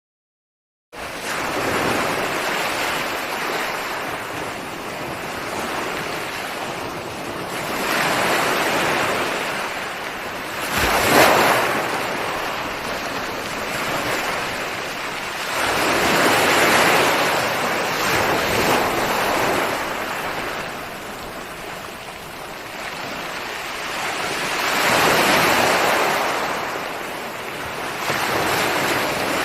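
Ocean waves breaking on a shore: a continuous wash of surf that swells and ebbs every several seconds, with one sharper crash about eleven seconds in. The sound cuts in abruptly out of silence about a second in.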